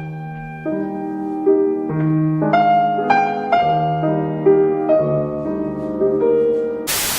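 Gentle piano music: a slow melody of single notes over low sustained chords. A loud noisy burst cuts in right at the end.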